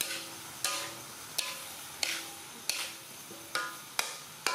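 A metal cooking utensil scraping and clanking against a metal pan in steady stir-frying strokes, about one every two-thirds of a second, each knock leaving a short metallic ring.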